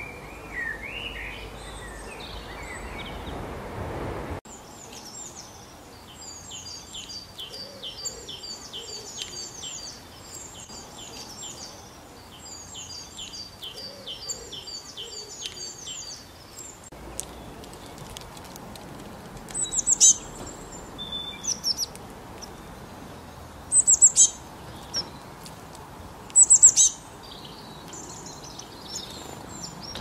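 Small songbirds chirping and singing: a long run of quick, repeated high trilled phrases, then a few louder, sharp chirps in short clusters later on.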